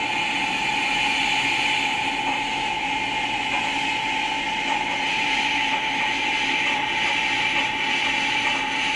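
Sound from the Loksound 5 decoder of an HO-scale SAR GMAM Garratt model, played through its small onboard speakers as the model creeps slowly forward. It is a steady hiss with a constant whine underneath.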